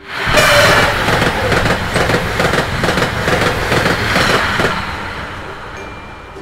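Passenger train passing at speed, a loud rushing rumble with the clatter of wheels on the rails. It starts suddenly and fades away over the last couple of seconds.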